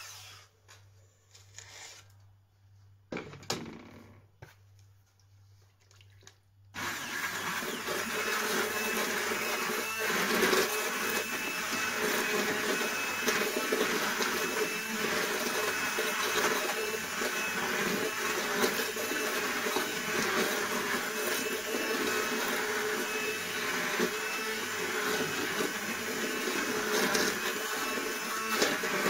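A handheld immersion blender is switched on about seven seconds in and runs steadily, puréeing soup in a steel pot. Before it starts there are a few short knocks of the pot and blender being handled.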